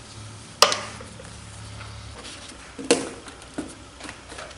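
Battery box tie-down strap being tightened over a plastic battery box lid: a sharp click a little over half a second in, then softer clicks and knocks around three seconds in.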